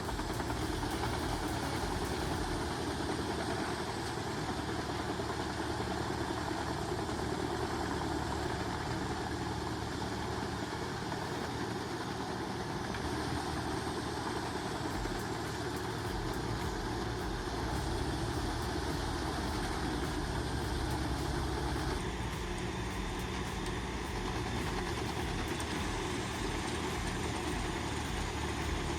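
A large engine running steadily, its sound shifting about three-quarters of the way through.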